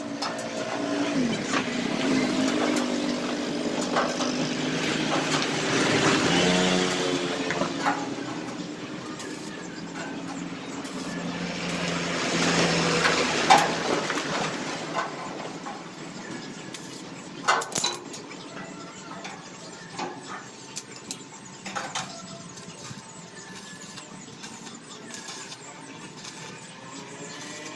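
Motor vehicle engines passing, rising and fading twice, with another one approaching near the end. Several sharp knocks come in between.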